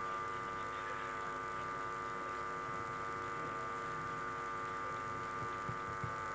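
Steady electrical mains hum and buzz from a live public-address system: a stack of even tones held without change. A couple of faint ticks come near the end.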